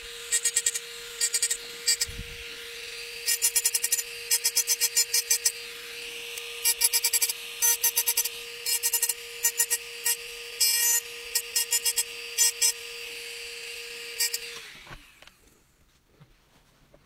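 Handheld rotary engraving tool running with a steady whine while its bit grinds into a glass, the grinding coming in quick bursts of short scratchy strokes. About fifteen seconds in it is switched off and the whine falls in pitch as it spins down.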